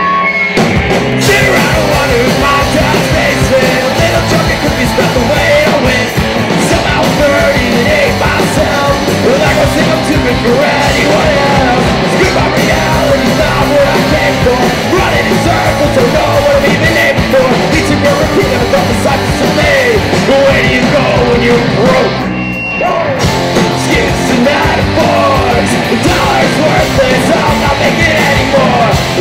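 A live rock band playing loud, fast rock: two electric guitars and a drum kit with a lead vocal at the mic. The music cuts in abruptly at the start and has a brief break about three quarters of the way through.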